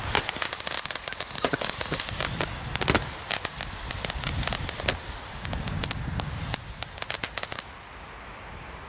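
Firework crackling: a rapid run of sharp crackles and pops, densest at the start, thinning out and stopping about three-quarters of the way through.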